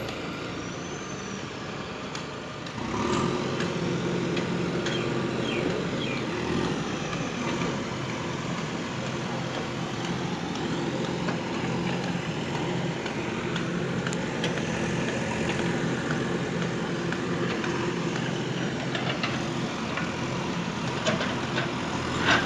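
A heavy vehicle's engine running steadily. It gets louder about three seconds in and holds there.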